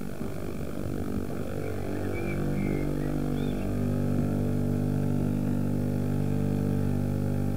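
A vehicle engine running at a steady speed, an even low hum, with a few faint high chirps about two to three and a half seconds in.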